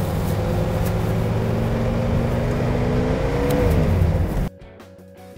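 1972 Cadillac Eldorado's 500 cubic-inch V8 running as the car drives by. The engine note climbs slowly, then drops as the car passes, and the sound cuts off suddenly about four and a half seconds in, leaving faint music.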